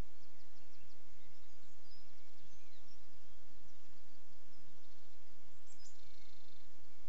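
Steady background hiss from an outdoor trail camera, with faint scattered bird chirps and calls over it, and a short rattling trill near the end.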